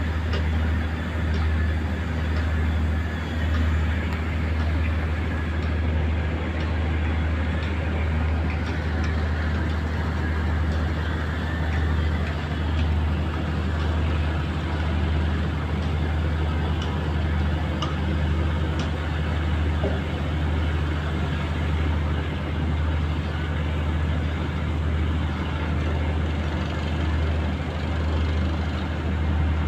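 Fishing boat's inboard diesel engine running steadily at low speed: a low, even drone with a slight slow pulse.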